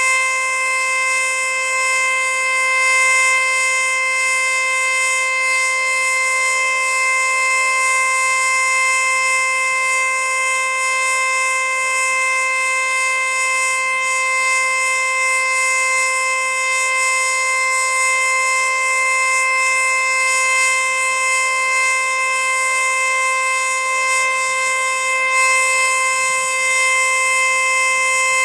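Federal Signal Eclipse-NH outdoor warning siren sounding a Full Alert test signal: one loud, steady tone that holds its pitch without rising or falling.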